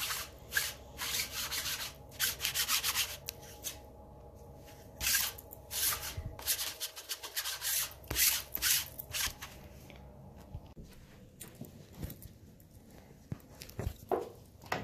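Sticky lint roller rubbed over clothing in quick, repeated strokes, picking hair off the fabric. The strokes come in dense bursts for about the first nine seconds, then thin out.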